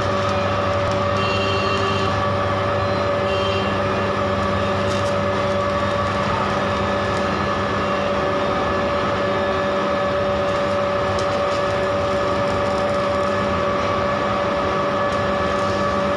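Electric arc welding of steel spikes: a continuous crackling sizzle from the arc over a steady electrical hum.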